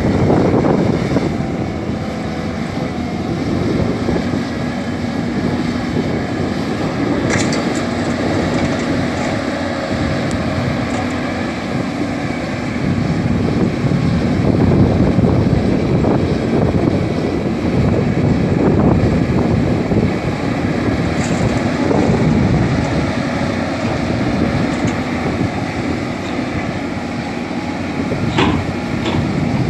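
Caterpillar 320D excavator working a load into a dump truck: its diesel engine and hydraulics run continuously, swelling and easing with the work, with a couple of short knocks.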